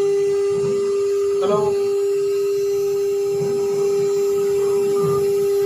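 CNC router spindle running with a steady high whine while a small end mill cuts a slot through a coconut coir fibre composite board.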